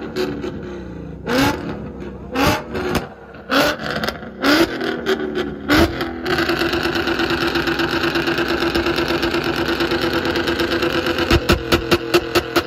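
Ford Mustang's engine revved hard through its exhaust. First come about five quick throttle blips, each rising and falling with a sharp crack. Then, about six seconds in, the revs are held up steady, and near the end sharp cracks come about four a second.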